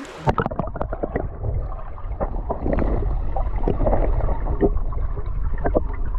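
Water heard through an action camera's waterproof housing as it is dipped underwater: the sound turns muffled just after the start, then it is muffled sloshing and gurgling with many scattered small clicks and knocks over a steady low rumble.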